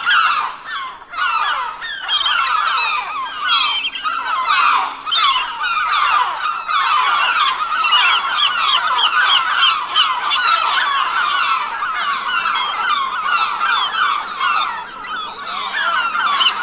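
A large flock of gulls calling continuously, with many sharp cries overlapping at once.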